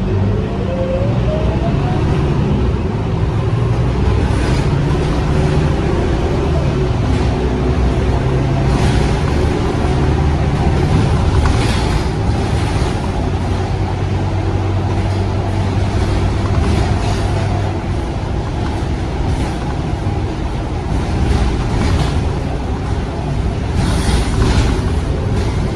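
Scania K230UB bus's five-cylinder diesel engine and drivetrain running under way, heard from inside the passenger cabin, with a rising whine in the first couple of seconds as the bus pulls.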